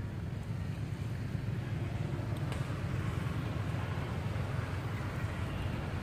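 Steady low rumble with a faint hiss of outdoor background noise, with no distinct calls or knocks.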